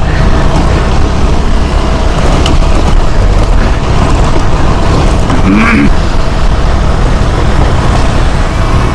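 KTM 390 Adventure's single-cylinder engine running on a rough off-road trail, with a loud, steady rush of wind and riding noise on the rider's camera microphone.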